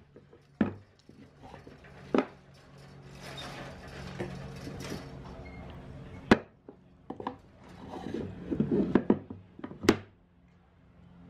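Wooden parts of a bandsaw box (the outer shell, its nested inner boxes and its lid) being handled, lifted apart and set back down on a plywood table: several sharp wooden knocks and clacks with soft handling noise between them, and a quick run of small clatter near the end.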